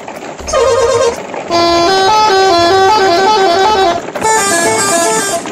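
Musical multi-tone vehicle horn of the Indonesian 'telolet' kind, playing a short tune in three bursts, the longest in the middle.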